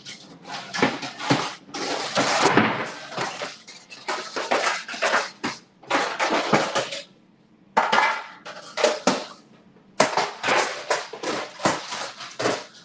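Metal baking sheets and pans clattering and banging together as a baking sheet is pulled out and readied, in uneven runs of knocks and scrapes with a short pause about seven seconds in.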